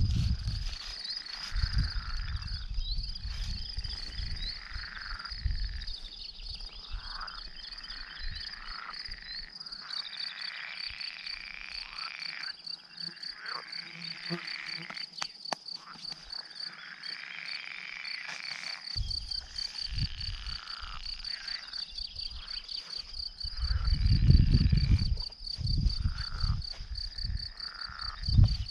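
Frogs calling from a small pond, repeated rising-and-falling croaks, over a steady fast high chirring of insects. About three-quarters through, a louder stretch of low rustling and rumble.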